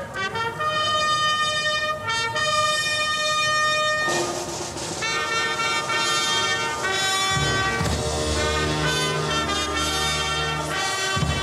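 Solemn brass-led orchestral music with long held notes that shift in pitch every second or two; deeper low notes join about seven seconds in.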